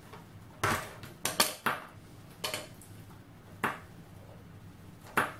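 Metal watch case and link bracelet clinking and knocking against a wooden tabletop while the screw-on case back is tightened: about seven sharp, irregular clicks.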